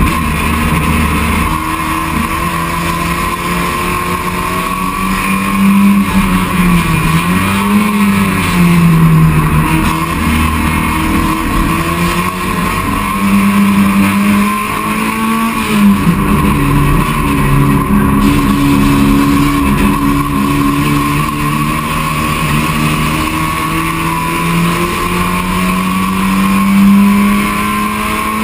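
Touring race car's engine heard from inside the stripped-out cabin, running hard under racing load. Its pitch drops and climbs again several times, about a quarter and about halfway through, as the car slows for corners and accelerates out.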